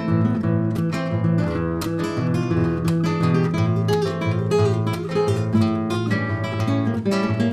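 Acoustic guitar music, strummed chords and quick plucked notes in a steady rhythm.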